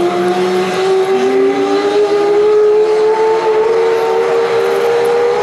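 F-15J fighter during engine start: a loud turbine whine slowly rising in pitch, with a second, lower whine cutting in about a second in and climbing toward the first.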